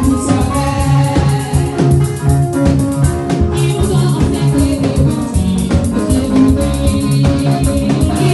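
Live, amplified gospel praise music with a steady beat, with women singing into microphones.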